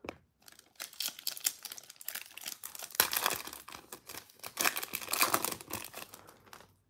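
Foil wrapper of a Panini Prizm football card pack crinkling in the hands, then torn open with a louder rustling crackle past the middle.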